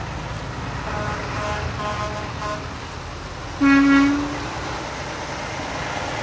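Convoy trucks passing with a steady engine rumble. A horn gives about four short, higher-pitched toots, then a louder, lower horn blast of just under a second sounds about halfway through, as a semi truck comes by.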